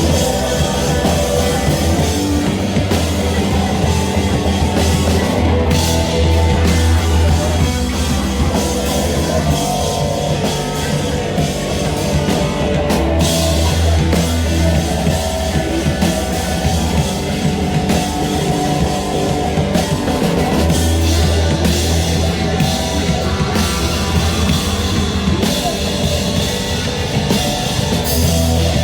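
Rock band playing loud, heavy rock music: drum kit, distorted guitar and bass, with the heavy low bass dropping out and coming back in every few seconds.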